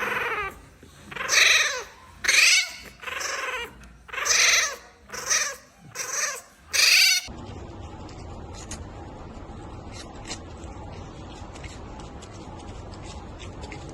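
An animal calling about eight times in quick succession, each call short and arching up then down in pitch. The calls stop abruptly after about seven seconds, leaving a steady low hum with faint scattered clicks.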